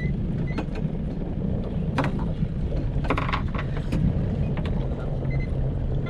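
Steady low rumble of a small fishing boat's engine idling at sea, with a few short knocks and rattles about two and three seconds in.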